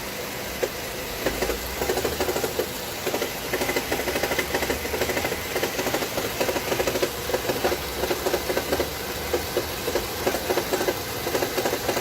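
Car engine running at idle with a fast, uneven ticking.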